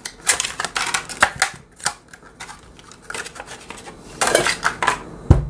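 Plastic blister pack of a hollow-body frog lure being pulled open and handled: a run of sharp plastic crackles and clicks, with a denser burst of crinkling about four seconds in and a dull knock just before the end.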